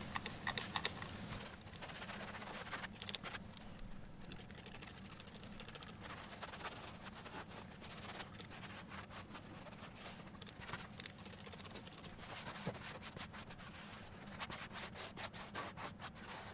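Hand wiping with a cleaning cloth: irregular rubbing and scratching strokes over a surface.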